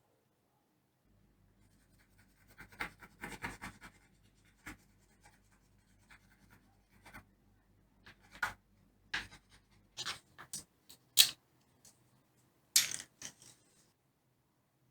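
Irregular short scratching strokes of a tool or abrasive worked by hand over a wooden surface, a dozen or so scattered strokes with the sharpest one about two-thirds of the way through.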